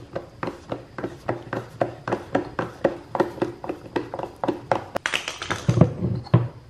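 Screwdriver clicking in quick, regular strokes, about four a second, as it backs out the screw that holds the mass airflow sensor in a plastic airbox. Near the end there is a rougher rustle and knock as the plastic airbox is handled.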